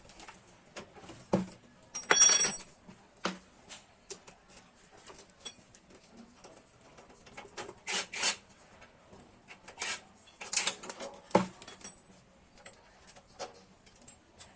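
Metal hand tools clicking and knocking against a motorcycle's exhaust fastenings as the bolts are worked loose, with one loud, briefly ringing metal clank about two seconds in.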